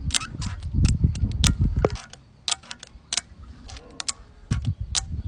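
A small homemade fingerboard being tried out with the fingers, its deck and wheels clacking and tapping on a hard surface in irregular sharp clicks, with dull low knocks in the first two seconds.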